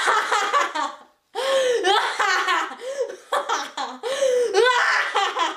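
A girl laughing hard in three long bouts with short breaks between them.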